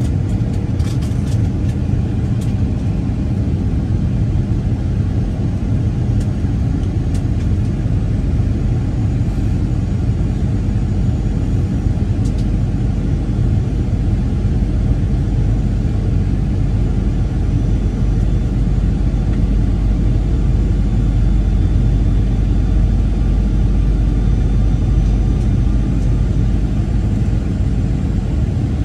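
Steady low rumble of cabin noise inside a Boeing 737-900ER jet airliner, from its engines, with a few faint clicks near the start.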